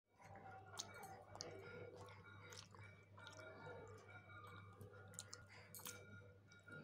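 Near silence: room tone with a steady low hum and faint scattered clicks.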